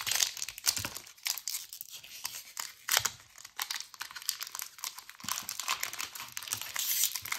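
Foil wrapper of a Pokémon TCG Obsidian Flames booster pack being torn open and crinkled, a dense run of quick crackles and rustles.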